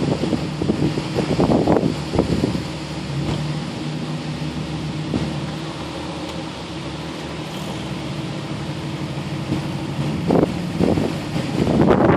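Off-road vehicle engine idling steadily, with wind gusting on the microphone in the first couple of seconds and again right at the end.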